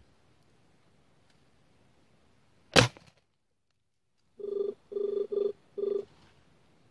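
A single sharp crack about three seconds in: a 5.5 mm Jade spring-piston air rifle firing, its mainspring weak. After a sudden dead silence come four short, even electronic tones, an edited-in sound effect.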